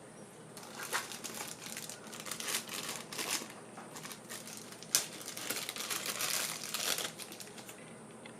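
Packaging crinkling and rustling as it is handled during unboxing, in irregular spells, with one sharp tap or click about five seconds in.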